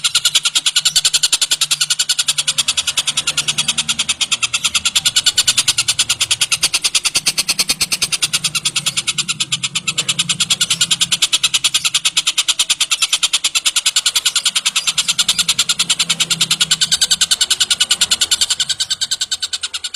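Tengkek buto kingfisher calling continuously: a loud, rapid, even chatter of high notes, fading out near the end.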